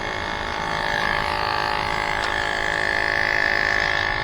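Electric tire inflator running steadily with a high, even whine as it pumps up an e-bike's front tire toward its 40 psi setting.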